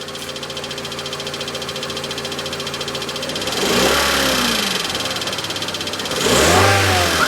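2001 Honda Civic EX's 1.7-litre D17 SOHC VTEC four-cylinder engine running with a rapid, even clicking, revved up and back down twice. The clicking is an unusual new noise whose cause the owner does not know.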